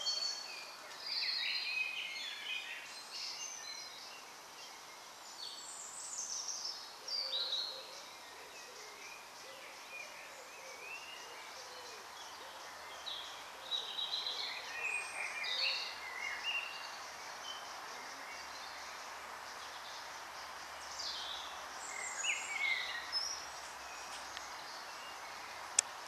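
Woodland birdsong: several birds singing short, high, varied phrases that overlap and come and go, over a steady faint background hiss. A single sharp click comes just before the end.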